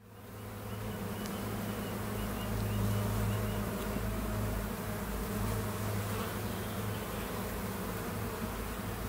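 Honeybee colony humming: a steady low drone that fades in over the first second. A few faint high chirps come about two seconds in.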